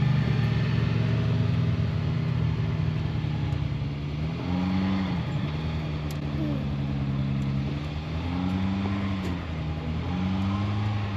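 Side-by-side UTV engine running steadily, then revved up and eased back down three times in short swells of throttle.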